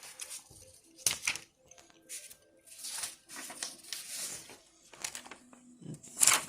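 Paper rustling and crinkling as a folded instruction leaflet is taken out and opened, with a few sharper snaps of the paper, the loudest about a second in and near the end.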